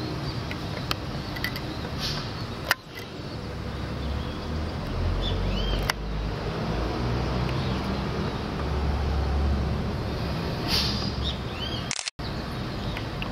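Open-air ambience: a low, uneven wind rumble on the microphone, a few short bird chirps, and two sharp clicks, one about three seconds in and one about six seconds in.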